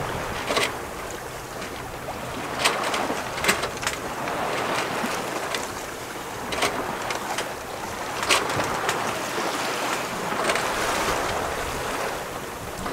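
Water rushing along the hull of a sailboat under way, swelling and easing with the waves, with a few sharp slaps of water against the hull.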